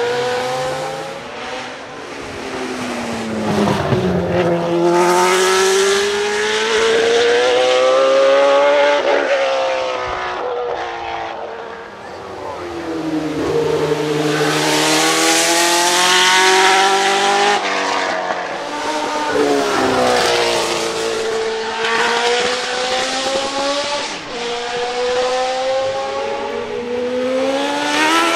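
Judd EV 3.5-litre V8 of a Leyton House March F1 car revving hard under load. The engine note climbs and then drops sharply, over and over, as the car works up and down through its gears.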